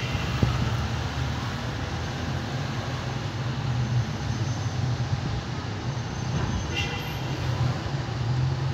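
Steady city street traffic with a low rumble, and a brief horn toot about seven seconds in.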